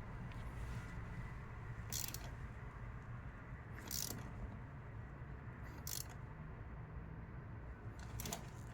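Faint handling noises from work on a car's wiring: four short, light scrapes about two seconds apart, over a steady low hum.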